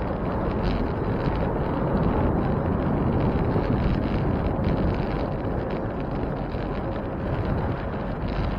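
Wind buffeting the microphone of a camera on a moving bicycle: a steady low rush of wind noise that swells and eases slightly.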